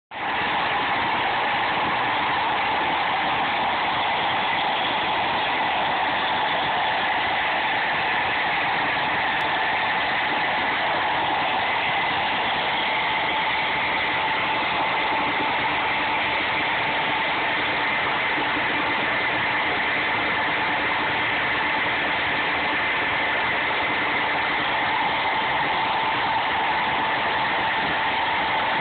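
Portable line-boring machine running steadily while boring a clamshell bucket's arm pin bores, with a constant whine over even mechanical noise.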